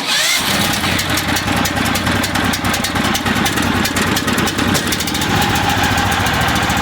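Predator 459cc single-cylinder gas engine starting on the electric start almost at once and running steadily, its start switch working again after the wires were moved to the switch's unused side.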